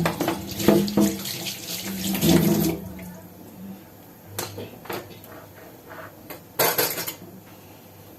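Running water, as from a tap, for the first three seconds or so, then it stops. A few light knocks follow, with a short clatter of kitchenware about two-thirds of the way in.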